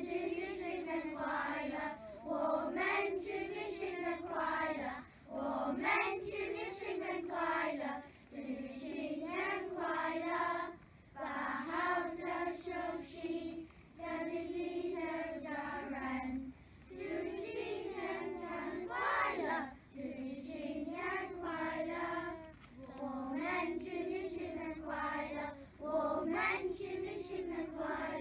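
A group of young children singing together in unison, in phrases of a couple of seconds with short breaths between them.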